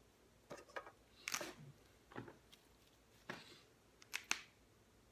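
Scattered light clicks and rustles of hands handling a plastic art marker, with two sharp clicks close together about four seconds in.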